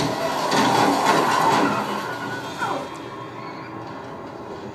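Television soundtrack through the TV's speakers: a loud rush of vehicle and road noise that eases after about two seconds, and partway through a brief falling scream low in the mix, the Wilhelm scream.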